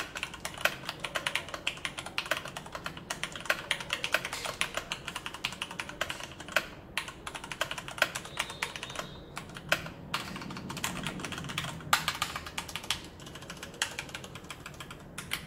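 Typing on a Leopold FC660M 66-key mechanical keyboard with Cherry MX Brown switches and PBT doubleshot keycaps: a fast, uneven stream of key clacks with a few brief pauses.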